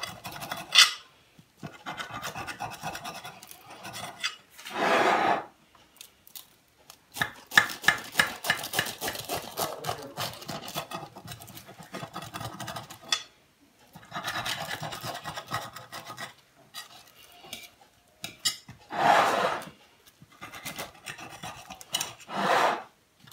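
Knife sawing through the crisp, baked malsouka (brik pastry) crust of a tajine: runs of dry crunching and rasping strokes with short pauses, a few strokes longer and louder than the rest. The crunch shows the pastry top is baked crisp.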